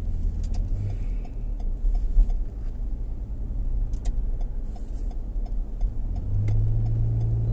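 Car cabin noise while driving: a steady low rumble of road and engine, with a few faint scattered clicks. A low engine hum comes up louder about six seconds in.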